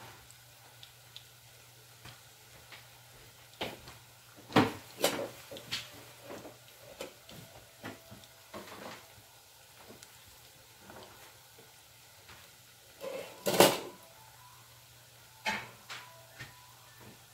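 Oil crackling and popping around eggplant and chicken balls frying in a saucepan, broken by a few louder clatters of metal kitchen tongs and utensils, the loudest about four and a half and thirteen and a half seconds in.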